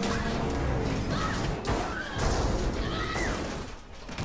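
Metal of a wrecked airplane fuselage creaking and crashing as it breaks up, with short high squealing glides and scattered crashes over a steady rushing noise.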